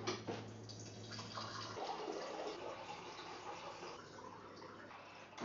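Water running and pouring into a glass. A low steady hum stops about two seconds in, and there is a knock at the start and another at the end.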